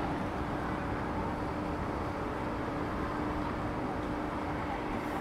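City street ambience: a steady wash of vehicle traffic with a constant low hum.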